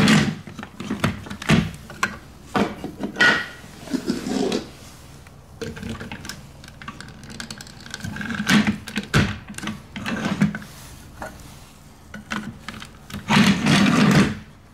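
Plastic LEGO bricks and train pieces clicking and clattering as they are handled and fitted together, in a string of short irregular clicks. A louder, longer clatter comes near the end.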